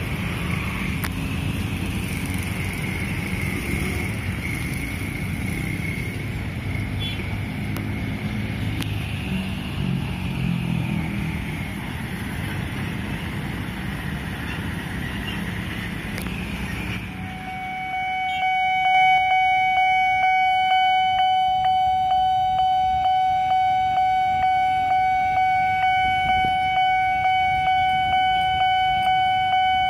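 Road traffic with motorcycles and cars passing over a railway level crossing. About halfway through, the crossing's Nippon Signal electronic warning alarm starts and rings a repeating tone about one and a half times a second, warning that a train is approaching as the barriers come down.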